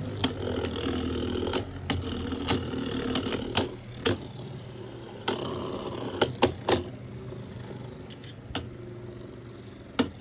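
Two Beyblade Burst spinning tops, one of them Jet Wyvern, spinning on a plastic stadium floor: a steady whir broken by about a dozen sharp clacks at uneven intervals as they collide. The whir grows quieter after about four seconds as the tops slow.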